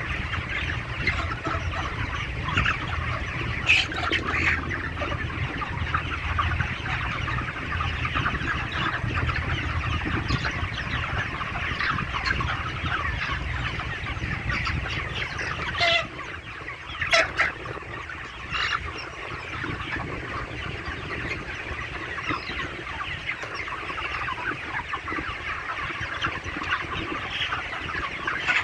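A large flock of broiler chickens about 35 days old clucking and cheeping in a continuous dense chorus, over a steady low hum that fades a little past halfway. A few short, louder sharp sounds stand out a little past halfway.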